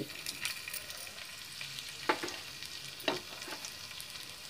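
Finely chopped ginger and garlic sizzling in hot ghee in a pan, with a steady hiss. The stirring spatula clicks against the pan twice, about two and three seconds in.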